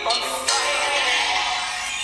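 A song with vocals played through a Sony Xperia smartphone's built-in loudspeaker. It sounds thin, with little bass.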